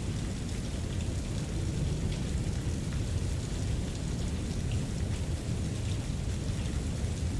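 Steady rain ambience mixed with brown noise: a constant deep rumble under a soft patter of raindrops, with no distinct events.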